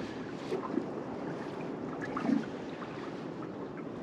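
Steady wind and water noise around a small drifting fishing boat, with a few faint short knocks.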